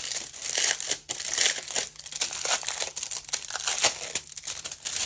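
Packaging crinkling and rustling as the contents of a boxed K-pop merchandise set are handled, a continuous stream of small crackles.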